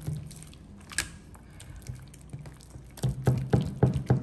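Clear slime being kneaded and pressed by hand in a glass baking dish: wet squelching, with one sharp squelch about a second in and a quick run of about six loud squelches near the end.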